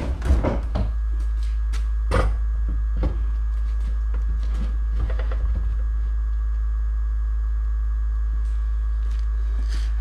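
Knocks and scrapes of a wheeled plastic garbage bin being lifted and set onto a wood-decked steel hitch platform, loudest near the start and about two and three seconds in, settling by about six seconds. Under it runs a steady low hum.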